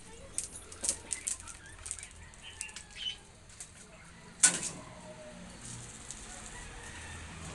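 Leaves and stems rustling and brushing against the phone as it is moved among potted plants: a run of short crackles early on and one much louder crackle about four and a half seconds in.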